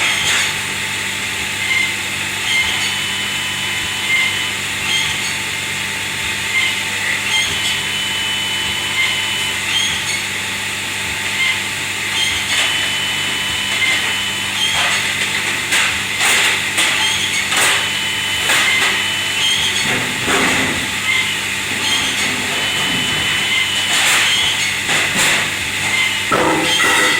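Kitchen machinery running with a steady mechanical hum and whine, joined from about halfway by sharp clatters and knocks.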